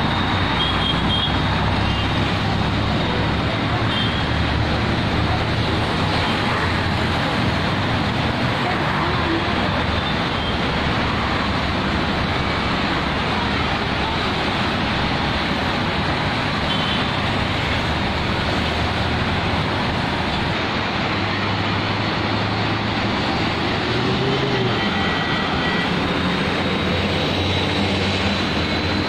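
Steady traffic noise from a busy multi-lane highway: the tyres and engines of passing cars, buses and motorbikes blending into a continuous wash.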